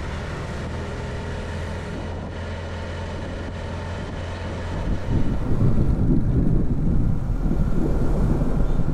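Motorcycle engine running steadily while riding along. About five seconds in, wind on the microphone grows louder and gustier.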